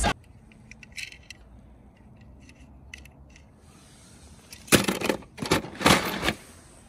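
Die-cast toy cars clinking and rattling against each other as they are handled. A few light clicks come first, then two louder bursts of clattering near the end.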